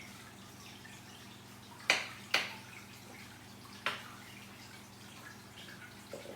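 Pieces of cut cucumber dropped into a small glass jar, landing with three sharp knocks: two close together about two seconds in and a third about a second and a half later. A steady low hum runs underneath.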